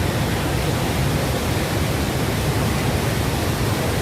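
Waterfall in spate after heavy rain, a loud, steady roar of falling water.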